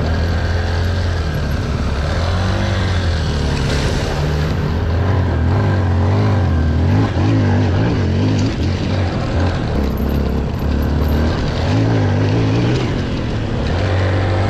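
Dual-sport motorcycle engine running while under way, its pitch rising and falling as the throttle opens and closes.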